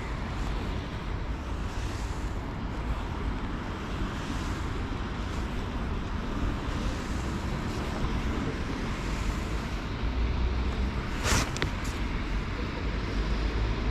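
Steady city traffic noise with low rumbling wind on the microphone, and a couple of brief sharp clicks about eleven seconds in.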